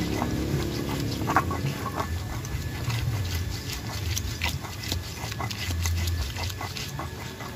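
Pestle grinding and mashing a thick chilli-peanut paste in a wide, flat mortar: rough scraping strokes and clicks, two or three a second, over a low background hum.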